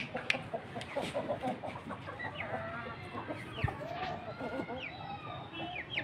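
Aseel chickens clucking over and over in short calls, with brief high chirps cutting in now and then.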